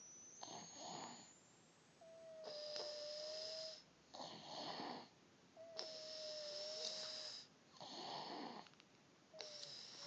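A sleeping baby snoring softly in a slow, even rhythm, every second breath carrying a thin, steady whistling wheeze; the whistled breaths come three times, with plainer rushes of breath between them.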